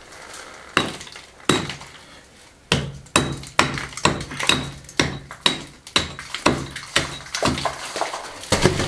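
A hand hammer striking stone, chipping away to make space for a stone being fitted into a wall. There are two slow blows, then from about three seconds in a steady run of about two blows a second.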